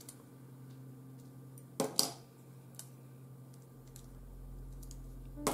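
Metal binder clips being unclipped from a ribbon-wrapped wooden embroidery hoop and set down on a cutting mat: two sharp clicks about two seconds in and another near the end, with a few lighter ticks, over a steady low hum.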